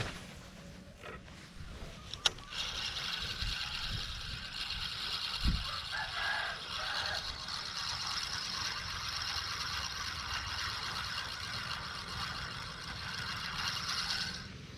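Daiwa Certate 4000 spinning reel being cranked, a steady whir from the line retrieve that starts just after a sharp click and stops suddenly near the end.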